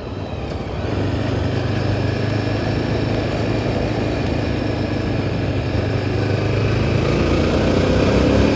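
Yezdi Adventure motorcycle's 334 cc single-cylinder engine running while the bike is ridden along, a steady engine note that grows louder about a second in and again near the end.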